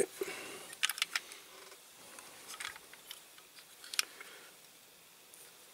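Handheld snips clicking and snapping a few times as the end of a small toy part is cut off, the sharpest snap about four seconds in.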